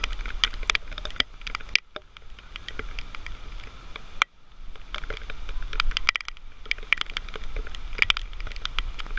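Rain pattering, with drops striking close to the microphone as dense, irregular crackling clicks over a low rumble. The sound breaks off abruptly twice, about two seconds in and again just past four seconds.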